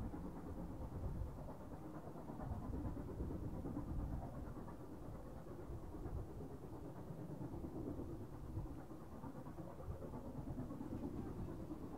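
Narrow-gauge 2-8-0 steam locomotive No. 315 working a passenger train far off, heard as a faint, steady low rumble. Wind buffets the microphone at the same time.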